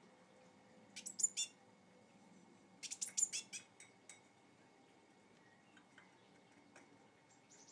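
Young blue tit calling: a quick run of about four high, sharp chirps about a second in, then a longer run of about eight around three seconds in, followed by a few faint notes.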